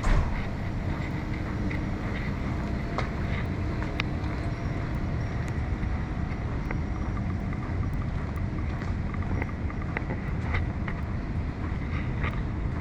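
Busy outdoor street ambience: a steady low rumble with wind buffeting the microphone, scattered light clicks and taps, and one sharp knock right at the start.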